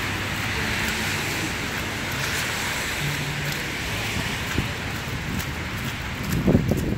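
Steady city street traffic with wind blowing across the phone's microphone, and a brief louder rumble near the end.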